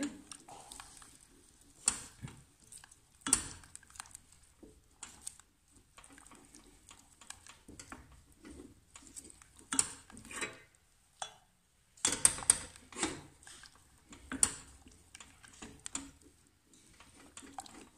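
Wooden spoon stirring and scraping in a stainless-steel saucepan of cooking caramel, with irregular knocks and scrapes against the pan's sides and bottom as the sugar dissolves.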